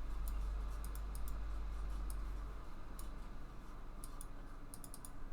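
Scattered light clicks from working a computer's controls, over a steady low electrical hum that eases off about two and a half seconds in.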